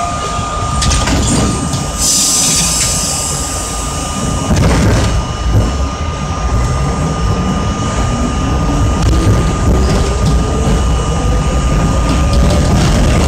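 R32 subway car pulling out of a station: a short burst of air hiss about two seconds in, then the traction motors whine steadily up in pitch as the train accelerates, over the constant rumble of the car.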